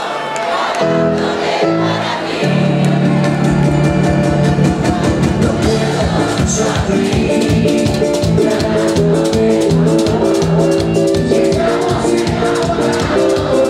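Live band playing instrumental Latin dance music: held chords for the first few seconds, then a steady dance beat comes in about three seconds in.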